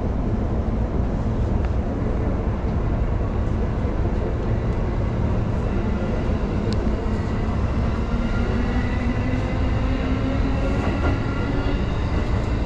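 Electric train running with a steady low rumble, heard from inside the car. From about halfway through, the traction motors' whine rises gradually in pitch as the train picks up speed.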